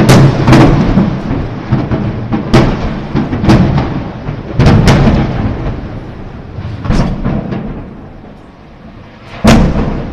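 A series of explosions in a burning warehouse: about eight sharp booms at uneven intervals, each trailing off in a low rolling rumble, with a loud one near the end.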